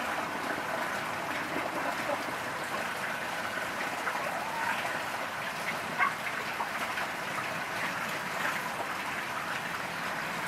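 Water draining steadily out of a tipped-up raised grow bed through its undone plumbing fitting. A brief, sharper sound stands out about six seconds in.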